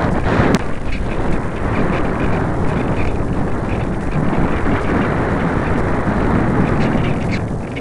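Airflow rushing over the microphone of a camera mounted on a light thermal glider in flight: a loud, steady wind noise that rises and falls a little, with a sharp click about half a second in.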